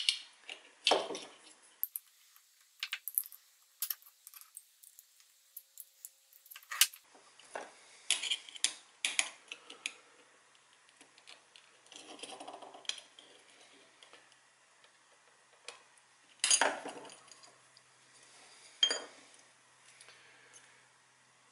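Small metal hand tools clicking, clinking and scraping against the sheet-metal case of a small synchronous clock motor as its tabs are worked loose and the gear-train cover is pried off. The sharp clicks come irregularly, with a quiet stretch a few seconds in and a few louder clinks later.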